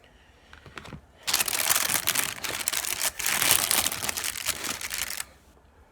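Food packaging crinkling loudly as it is handled and opened, for about four seconds starting a second in.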